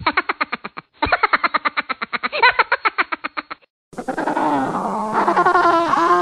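A rapid chattering animal-like call, about a dozen short pitched pulses a second, in two runs with a brief break about a second in. It stops near four seconds in, and music takes over.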